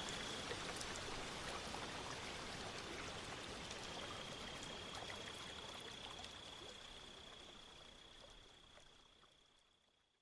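Running-water ambience with a faint steady high tone, fading out gradually to silence near the end.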